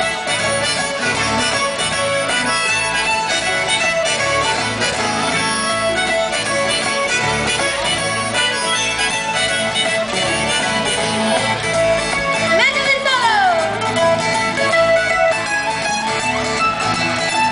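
Live band playing an instrumental passage: strummed acoustic guitar and other plucked strings, including a bass balalaika, over a steady beat. A lead line swoops down in pitch about thirteen seconds in.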